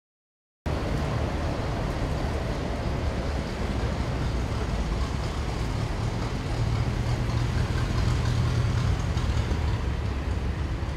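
Steady low rumble of a vintage car's engine and road noise. It starts abruptly after a brief silence and grows a little louder partway through.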